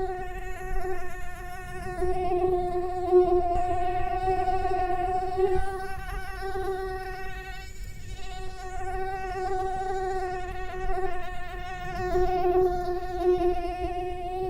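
Mosquito in flight: the steady high whine of its wingbeat, with many overtones, swelling and fading in loudness as it comes and goes, and a brief break about eight seconds in.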